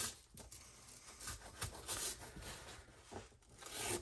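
Faint scratching and rustling as a razor blade cuts a small piece from a sheet of packing foam, with light handling noises of the foam.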